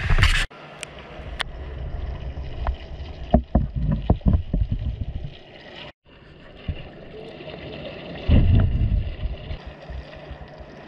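Swimming-pool water heard through an underwater camera: a muffled low rumble of moving water, with a cluster of sharp knocks about three and a half to four and a half seconds in and a louder low surge of water about eight seconds in.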